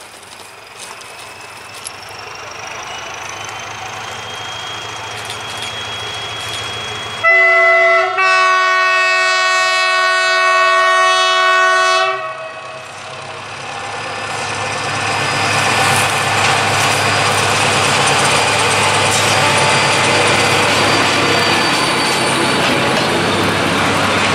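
SM42 diesel locomotive pulling a passenger train, its engine note rising steadily as it accelerates. About seven seconds in its horn sounds a short blast and then a long one of about four seconds. From about fourteen seconds the locomotive and coaches pass close by, wheels rumbling and clicking over the rails.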